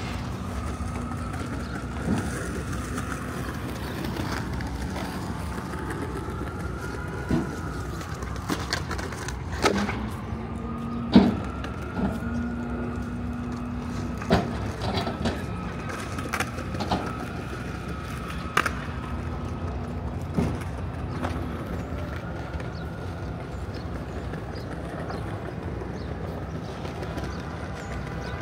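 Manhattan street ambience: a steady hum of traffic with scattered knocks and clicks, and a faint tone that slowly rises and falls over and over, like a distant siren wail.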